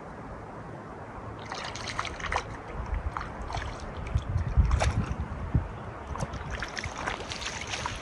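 Water splashing at the lake's edge as a hooked brook trout thrashes at the surface and is scooped into a landing net: a run of short, irregular splashes starting about a second and a half in, heaviest around the middle.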